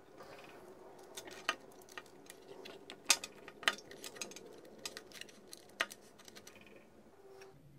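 Small plastic clicks and taps as a LiPo battery pack is handled and fitted into the battery bay of a FlySky FS-GT3B RC transmitter. A few sharper clicks stand out in the middle, over a faint steady hum.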